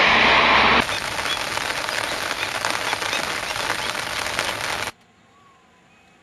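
Heavy rain hissing on a wet road, then from about a second in heavy rain falling on open floodwater, a dense hiss full of tiny drop ticks. Near the end it cuts off abruptly to a faint background.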